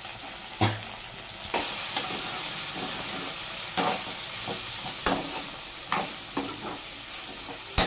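Okra pieces frying in oil in a steel kadai, a steady sizzle that grows louder about a second and a half in, while a steel spatula stirs them and knocks and scrapes against the pan about once a second, loudest near the end.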